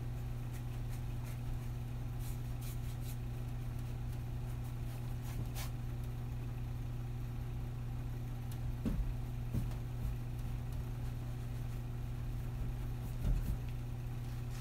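A steady low hum, as from a fan or ventilation running, with faint brush scrapes on canvas and a few soft knocks in the second half.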